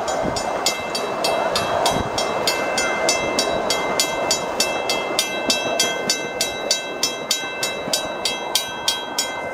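Miniature railroad crossing signal bell ringing in rapid, even strikes, about three to four a second, warning of the train at the crossing. Under it, the miniature train's rolling noise on the track.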